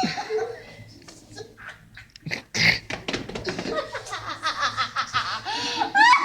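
A woman's sneezes and laughter: a sharp sneeze about two and a half seconds in, then a stretch of laughing with high, squeaky sounds near the end.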